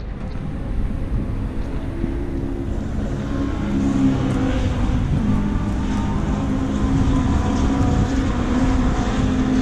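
Race car engines running on the circuit, heard as a steady drone that wavers in pitch, with wind buffeting the microphone.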